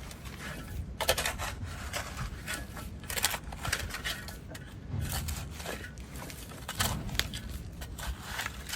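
Irregular scraping and crunching, a dozen or so short strokes of varying strength, the sharpest about a second in.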